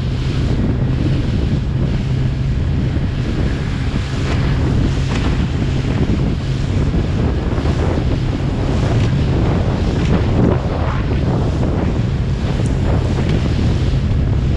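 Small fishing boat's engine running with a steady low drone, under heavy wind buffeting the microphone and the rush of rough sea.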